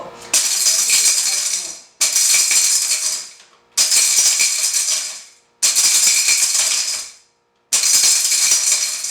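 Innomix Surya mixer grinder pulsed five times, each pulse a burst of hard turmeric pieces rattling in the small jar as the blade spins, starting sharply and fading out over about a second and a half. The rattle means bigger pieces are still there and the turmeric is not yet ready for continuous grinding.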